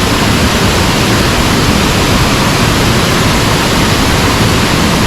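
Waterfall roaring: a loud, steady rush of falling water with no let-up.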